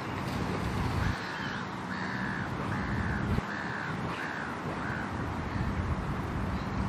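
A bird calling six times in quick succession, each call a short harsh arched note, the series fading toward the end, over low wind noise on the microphone.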